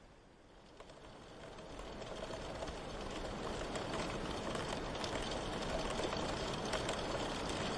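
Steady rain with a patter of fine drop ticks, swelling from faint to full over the first few seconds.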